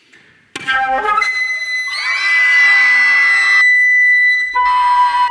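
Solo concert flute playing. A sudden start into a quick flurry of short, sharp notes leads into a long high held note. For about a second and a half a dense, rough cluster of many tones sits over that note, and near the end a new, lower note begins and is held.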